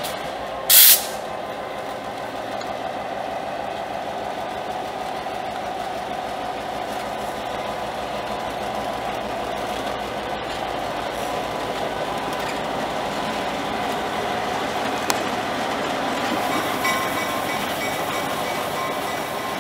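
Norfolk Southern diesel locomotive running steadily as it rolls slowly past, its engine a continuous drone that grows a little louder toward the end. About a second in there is a brief, loud hiss.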